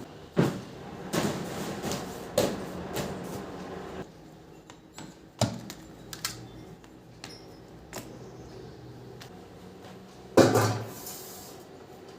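Scattered knocks and clunks from household things being handled, with rustling between them in the first few seconds; the loudest knock comes near the end.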